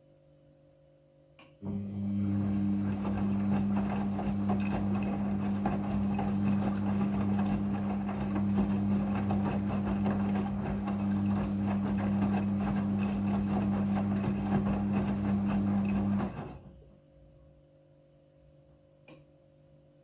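Midea front-loading washing machine during its rinse cycle: a click, then a steady loud hum with a rushing, watery noise for about fifteen seconds before it cuts off, back to a faint hum.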